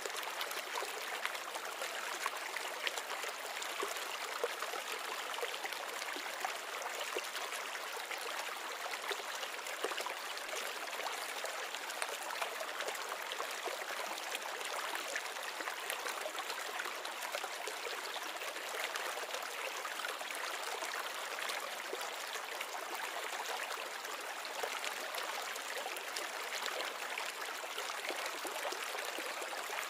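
Water in a small reef aquarium trickling and bubbling steadily, with many small splashes and pops.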